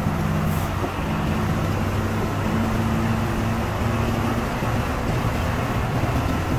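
Intercity coach driving at speed, heard from inside the cabin: a steady low engine hum over road and tyre noise.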